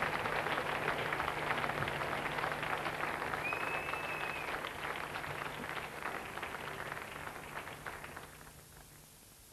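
Concert audience applauding, with one long whistle a few seconds in; the applause dies away near the end.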